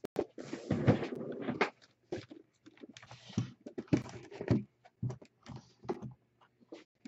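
A box being handled and set down on a desk: irregular knocks, clicks and scraping, with a longer rustle and bump about a second in.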